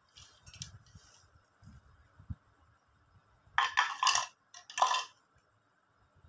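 Halved fox nuts (makhana) spooned and tipped from a small glass bowl into a glass bowl of semolina, with a metal spoon scraping and clinking against the glass. Light scratches come first, then two louder clattering bursts, one about three and a half seconds in and a short one about five seconds in.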